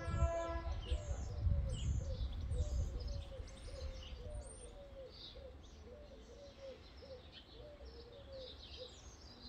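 UK level crossing alarm sounding with the barriers down, a warbling two-tone note repeating about two to three times a second. A short steady pitched note sounds right at the start, and a low rumble fades away over the first few seconds.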